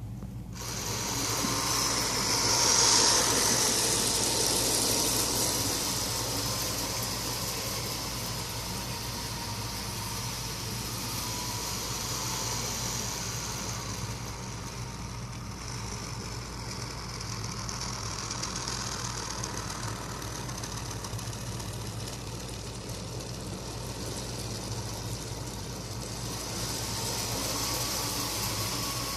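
PowerCity toy train running on its track: a steady electric-motor whir with wheel rattle that starts suddenly, then grows louder and softer, loudest about three seconds in and again near the end.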